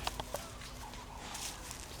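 African wild dogs at a kill: three or four quick snaps or clicks in the first half second over a faint background, typical of feeding.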